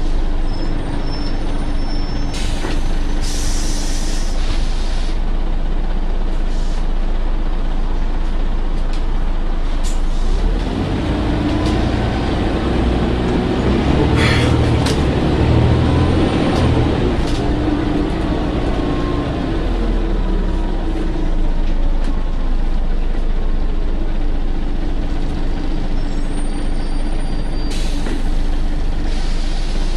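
Scania Omnicity articulated bus under way, heard from inside: its nine-litre diesel hums steadily, then a third of the way in it pulls harder, its pitch rising and falling through the gear changes for several seconds before settling again. Short hisses of compressed air, typical of the air brakes, come near the start and again near the end.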